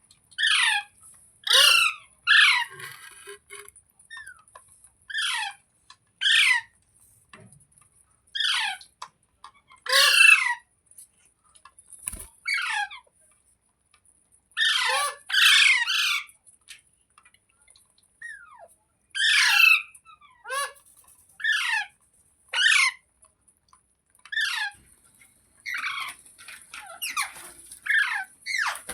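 Rose-ringed (Indian ringneck) parakeet squawking: loud, harsh calls, each sliding downward in pitch, repeated about every second with short pauses between clusters.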